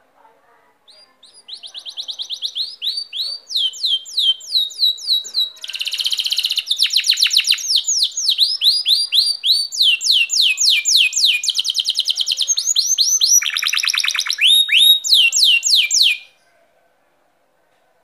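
Domestic canary singing one long song of fast trills, each a rapid run of repeated falling notes, switching to a new trill every second or two. The song starts about a second and a half in and stops suddenly near the end.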